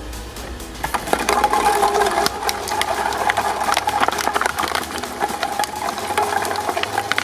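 Shredding machine running, starting about a second in: a steady mechanical hum under dense, rapid rattling and crunching clicks as it chews through a toy.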